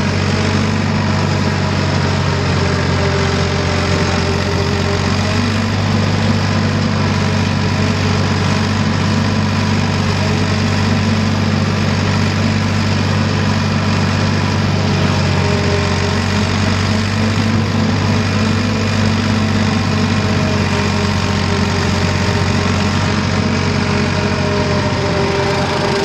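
Ford diesel tractor engine running steadily under load, driving a PTO rotary cutter through tall grass.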